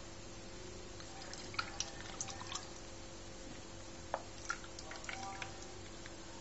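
Custard mixture of eggs, milk and sugar poured through a plastic sieve into a pot: faint dripping and trickling of liquid, with a few light ticks.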